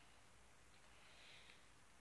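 Near silence: room tone, with a couple of faint soft ticks about halfway through.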